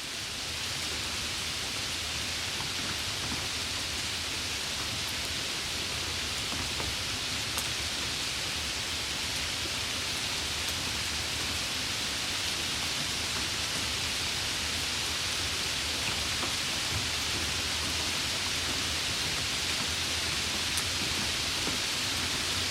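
Steady rain falling, an even hiss with a few faint individual drop ticks, fading in over the first half second and then holding level.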